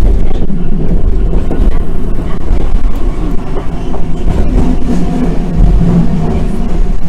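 Randen electric tram running along the track, heard from inside the car: a loud, steady rumble of wheels and motor with a low hum and a few faint rail clicks.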